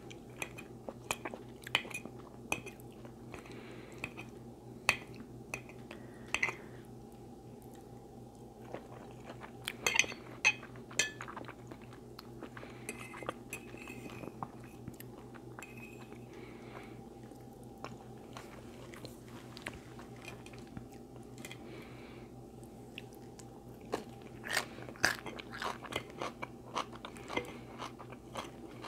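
Close-up chewing and crunching of food, with sharp wet mouth clicks coming in clusters and a quieter stretch of softer chewing in the middle.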